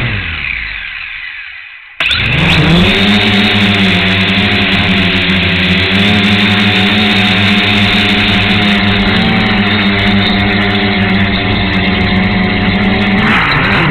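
Dromida Vista quadcopter's motors and propellers humming steadily at flight speed, heard up close from the camera mounted on the drone; the hum starts abruptly about two seconds in and dips briefly in pitch near the end. A louder sound fades away during the first two seconds.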